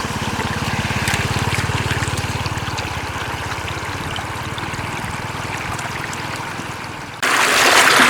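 Shallow floodwater running and trickling, with a low steady hum underneath. About seven seconds in the sound switches abruptly to a louder, brighter rush of water.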